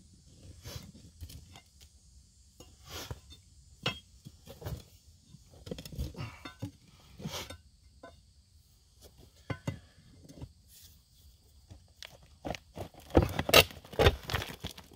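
Steel pry bar scraping and knocking against a rock face, breaking loose rock and dirt in irregular strokes, with a louder run of strikes near the end.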